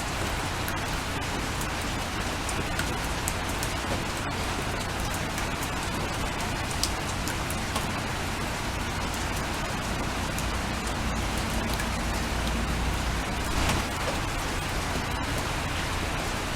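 Steady rain on a window: a constant hiss with a dense patter of single drops ticking through it and a low rumble underneath, with a brief louder patch about fourteen seconds in.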